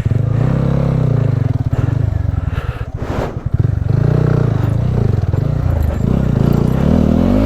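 TVS Apache RTR 200's single-cylinder engine running at low revs on a rough, muddy trail, its pitch rising and falling a little with the throttle and dipping briefly about halfway through.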